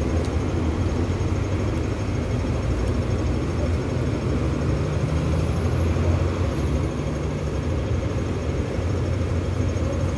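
Steady rumble of busy city street traffic, engines of buses and a truck running at a crossing, with a low hum throughout.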